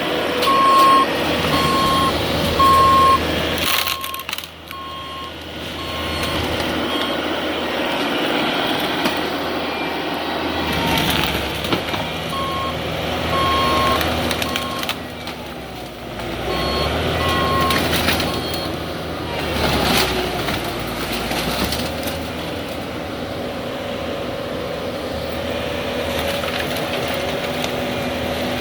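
A heavy machine's reversing alarm beeping over its running diesel engine, about one and a half beeps a second. The alarm stops after a few seconds and comes back twice in short runs. A few sharp knocks and crashes of demolition debris are heard in between.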